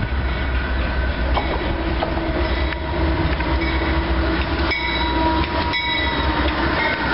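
CSX diesel freight locomotives running past close by, their engines and wheels on the rails making a loud, steady rumble.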